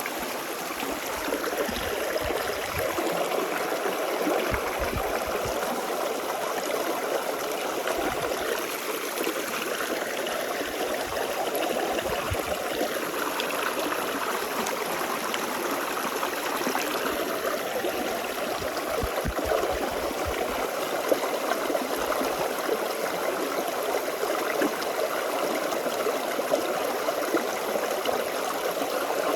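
Forest stream flowing and babbling over rocks, a steady rush of water with small gurgles.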